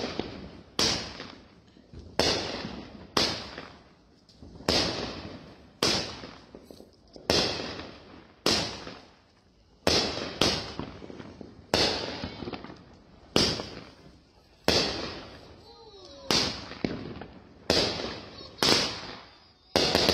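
Aerial fireworks going off in quick succession, one sharp bang about every second, each dying away before the next.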